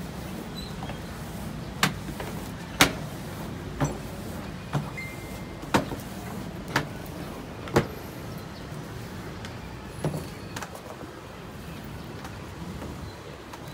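A thick rope being hauled up over a tower railing by hand, with a sharp knock about once a second for several seconds, then one more a little later, over a steady outdoor background.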